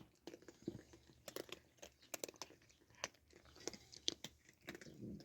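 Cats chewing and crunching food, with irregular sharp bites and crunches.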